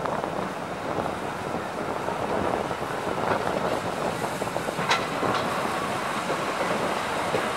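Passenger coach of a steam-hauled special train rolling along the track, heard through an open coach window: a steady rumble of wheels on rails, with a sharp click about five seconds in.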